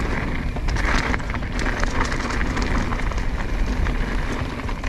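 Mountain bike riding down a dirt trail: tyres rolling over dirt and rock with many small rattles and knocks from the bike, and steady wind rumble on the microphone.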